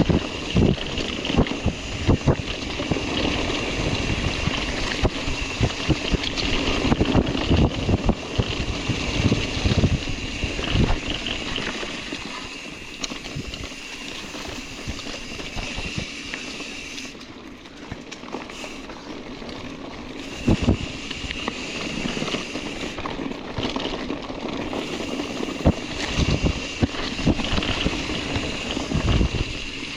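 Mountain bike rolling over a rough, rocky dirt trail: steady tyre and gravel noise with frequent irregular thumps and rattles as the bike hits bumps.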